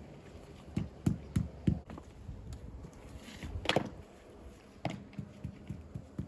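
Four dull knocks in quick succession about a second in, then a short scrape, and a scatter of lighter taps.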